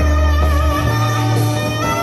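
Dance music playing loudly, with long held bass notes under a sustained, wavering melody line.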